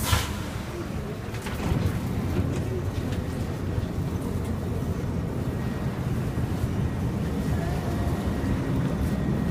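R62A subway train running through the tunnel, a steady low rumble that grows louder from about a second and a half in, with a short sharp hiss at the very start.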